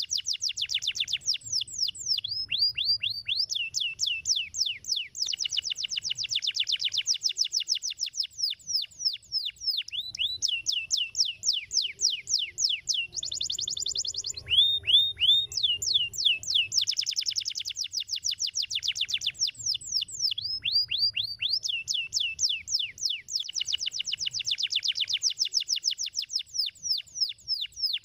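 Domestic canary singing a long song of fast rolling trills, each made of rapid repeated downward-sweeping notes. Every few seconds the trill changes to a slower run of sweeping notes before the next fast roll.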